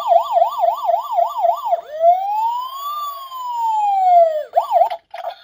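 Emergency-vehicle siren: a fast yelp of about three to four rises and falls a second, then one slow wail up and down, then a brief quick yelp again that breaks off near the end.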